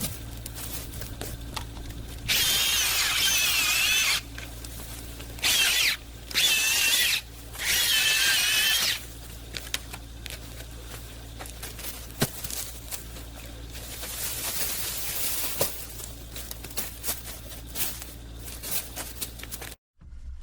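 A handheld power tool cutting up wood, running in four short bursts with a high, wavering whine.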